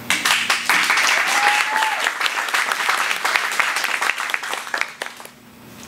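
Audience applauding, a dense patter of many hands that thins and dies away near the end.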